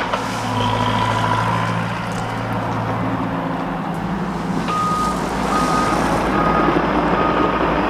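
Diesel heavy construction machine running steadily. From a little past halfway, its backup alarm beeps about once every 0.8 seconds as it reverses.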